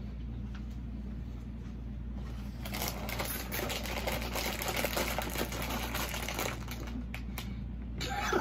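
Plastic snack bag inside a cracker box crinkling and rustling as it is pulled at by hand, trying to tear the sealed bag open. The crinkling starts about two and a half seconds in and dies down near the end.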